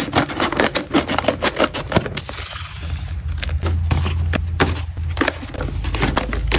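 Plastic stand-up pouches of freeze-dried pet treats crinkling and crackling as they are handled, in many quick, sharp crackles, with a brief smoother rustle a little after two seconds in.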